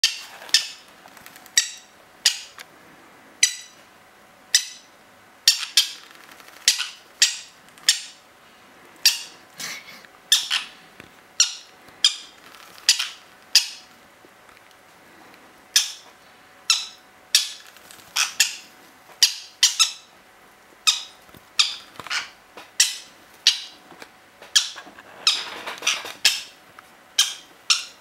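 Parrot chicks giving short, high squawks over and over, about one or two a second: begging calls during syringe hand-feeding.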